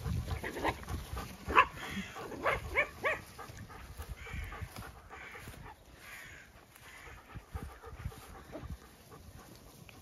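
Small dogs yapping as they chase sheep: a quick run of short, sharp yips about one and a half to three seconds in, then fainter noise.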